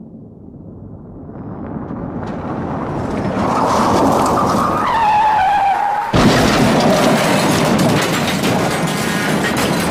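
Car crash sound effect: a car approaches, its tyres skid with a squeal that falls in pitch, then a sudden crash about six seconds in is followed by crunching, clattering debris.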